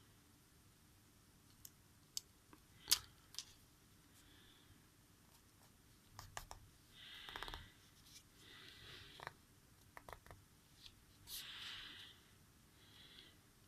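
Scattered light clicks and taps of small hand tools and parts on an opened smartphone, with a few short scraping or rubbing sounds about halfway through and again near the end.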